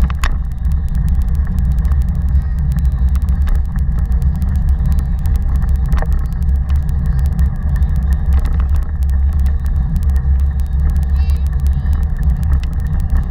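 Steady low rumble of wind and road vibration picked up by a camera mounted on a moving Taga 2.0 bike stroller, with scattered faint ticks.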